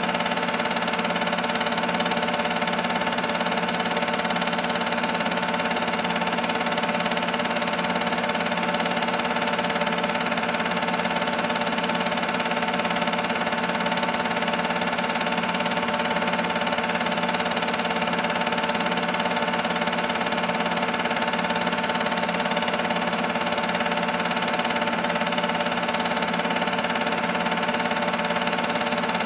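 Film-loop projector running, its motor giving a steady hum made of several fixed tones that never changes.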